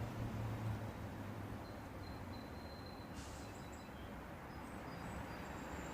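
Quiet outdoor background: a faint steady hiss with a low hum that fades after the first second, and a thin high steady whistle lasting about a second and a half near the middle, with fainter high tones near the end.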